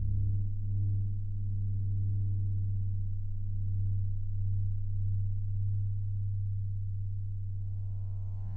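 Ambient meditation music: a low, steady drone tone that holds throughout, with a brighter tone rich in overtones swelling in near the end.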